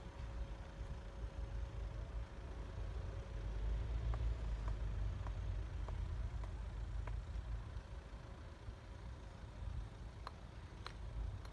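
Engine running with a low, steady rumble, with a few faint light clicks scattered through the middle and near the end.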